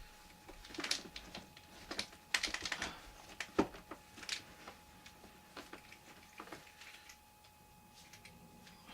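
Dolls being handled and set down: a run of small clicks, taps and rustles, plastic knocking lightly, busiest a couple of seconds in, with one louder knock near the middle. A faint steady high tone runs underneath.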